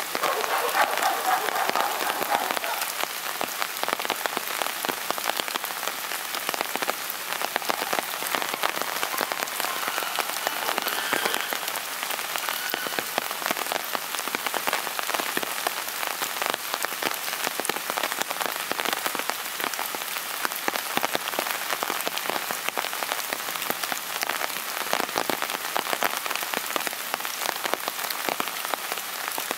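Steady rain falling: a dense, even patter of many small drops striking hard surfaces.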